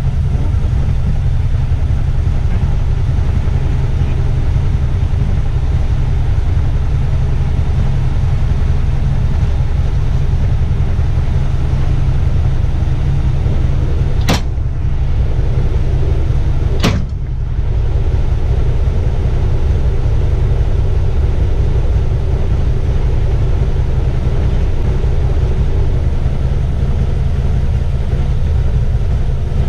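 Side-by-side UTV engine idling, heard from inside its cab as a steady low rumble. Two sharp clicks come about 14 and 17 seconds in.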